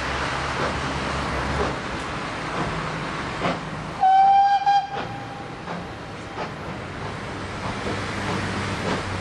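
One short, single-note whistle blast from the locomotive, about four seconds in and the loudest sound, over the steady low rumble of the train standing at the platform.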